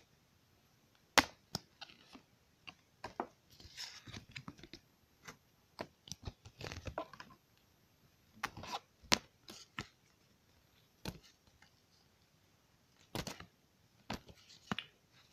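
Handling noise: irregular sharp clicks and short rustling, rubbing bursts as hands and fabric move against the camera's microphone.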